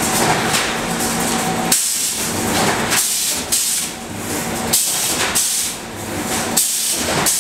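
Wire-mesh welding machine cycling, with repeated hissing bursts about one every half second to a second as it welds the steel wires into mesh. A steady machine hum runs under the first couple of seconds.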